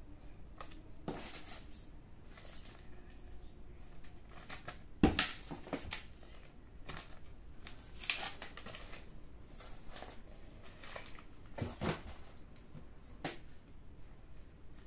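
Rustling and crinkling of packaging as items are lifted out of a cardboard box, among them a clear plastic bag, with scattered knocks and handling noises. The loudest knock comes about five seconds in.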